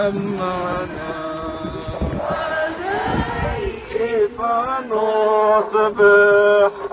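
Voices singing an Arabic Marian hymn in long, held notes, with a brief noisy stretch around the middle.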